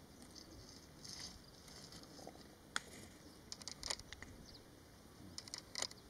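Faint outdoor field sound with scattered small clicks and ticks. One sharp tick comes about halfway through, and quick clusters of ticks come a little later and again near the end.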